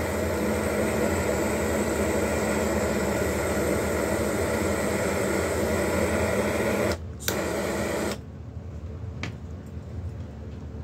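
Gas soldering torch flame hissing steadily as it heats a sterling silver pendant and solders its jump ring. The hiss breaks briefly about seven seconds in, comes back, and stops just after eight seconds.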